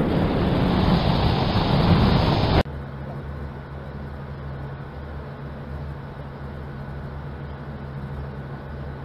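A loud rushing noise that cuts off suddenly about two and a half seconds in, followed by the steady low drone of boat engines running, with water rushing along the hull of a moving river cruise ship.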